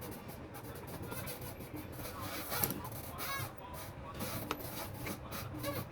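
Clicks, taps and scrapes of hands and tools working on a steam iron's parts, over a steady low hum.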